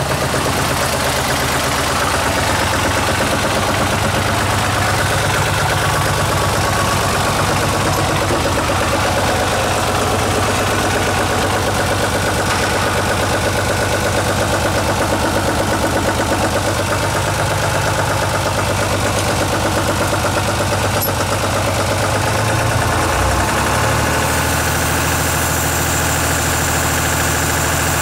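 UTB 445 DTC tractor's diesel engine running steadily at idle, heard from inside its cab; its note shifts near the end.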